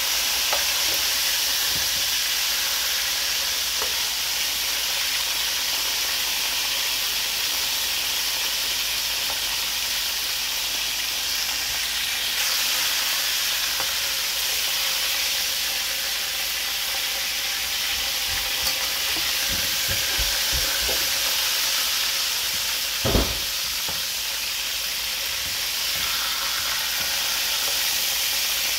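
Two whole pigeons frying in hot oil in an aluminium pan, sizzling steadily, with scattered scrapes and clicks of a metal slotted spatula turning them. One louder knock comes late on.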